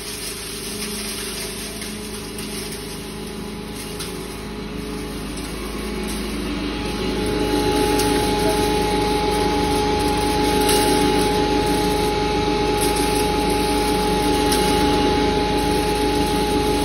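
A 3 HP electric-motor-driven full-screen maize grinder running steadily with a constant hum, grinding maize into coarse cattle feed. The sound grows louder, with a higher steady whine, about seven seconds in.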